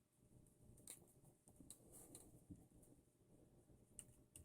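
Near silence, with a few faint light clicks of small screws and parts being handled.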